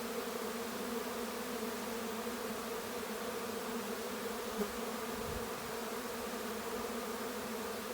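Honey bee swarm buzzing steadily all around: a continuous hum of hundreds of bees in flight while the swarm moves in to take up a new hive.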